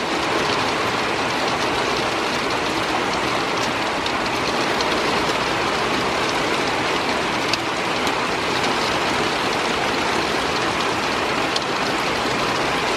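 Heavy downpour in a thunderstorm: dense, steady rain noise with a few sharp ticks of drops striking a hard surface.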